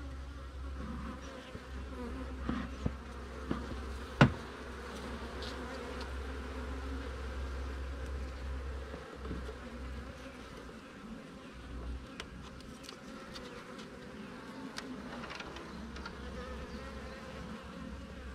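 Honey bees buzzing steadily from an open hive. A single sharp knock about four seconds in is the loudest sound, and lighter clicks follow later as a hive tool prises a frame loose.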